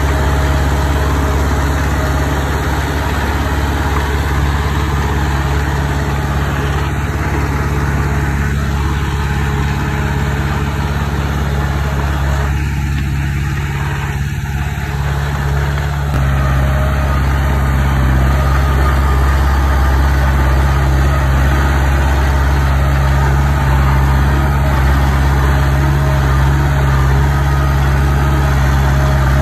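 Diesel engine of heavy earthmoving machinery running steadily, growing louder about halfway through.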